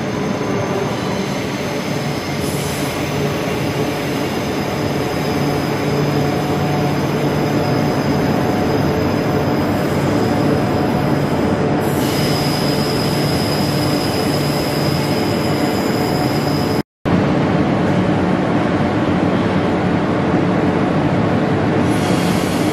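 Queensland Rail electric suburban trains moving through an underground station platform: a steady rumble of wheels and traction with thin, high squeal from the wheels on the rails. The sound changes abruptly about twelve seconds in, cuts out for a moment about seventeen seconds in, and shifts again near the end.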